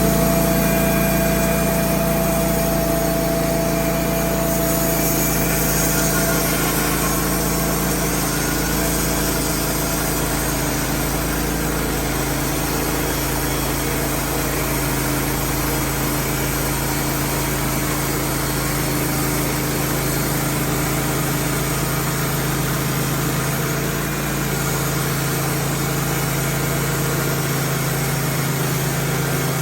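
Wood-Mizer LT15 portable band sawmill running steadily, its engine droning with a few steady low hums.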